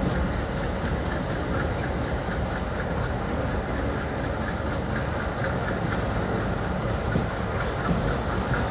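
Passenger train coach rolling along the track, heard from its open doorway: a steady rumble of wheels on rail with light, repeated clicking.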